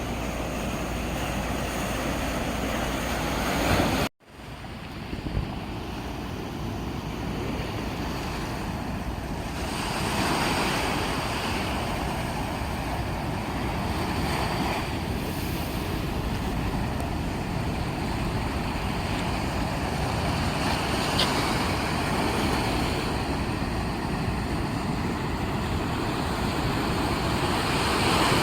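Sea waves breaking and washing ashore: a steady rush that swells now and then, with wind buffeting the microphone. The sound cuts out abruptly for a moment about four seconds in.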